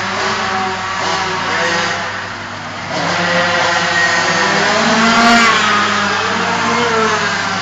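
Several minibike engines running and revving, their pitches rising and falling independently of one another.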